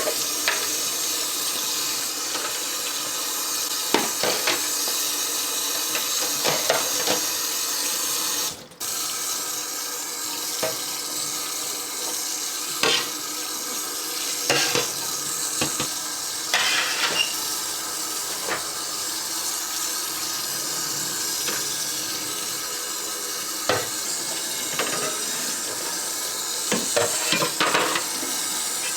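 A kitchen tap runs steadily into a sink while fridge trays are rinsed under it, with occasional knocks and clatter as the trays bump against the sink and each other. The water cuts out briefly about nine seconds in.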